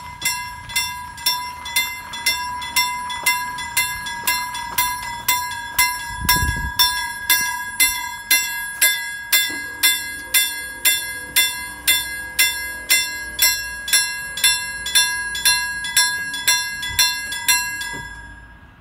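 Level crossing warning bell striking steadily at about two strikes a second, each with a ringing tone, then stopping near the end. A brief low bump about six seconds in.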